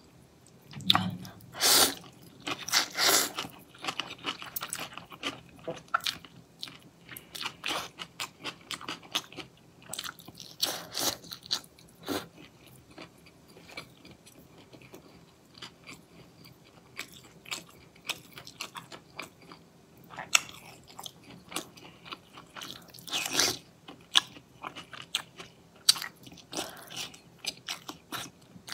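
Close-miked eating of cold noodles with shredded cucumber: wet chewing and crunching with many small mouth clicks, and a few louder slurps of noodles, one near the start and one past the middle.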